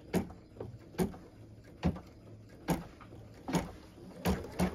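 Computerized embroidery machine beginning to stitch a felt tack-down line: a steady low motor hum with sharp needle knocks a little under once a second. The knocks come closer together near the end as the machine speeds up toward full-speed stitching.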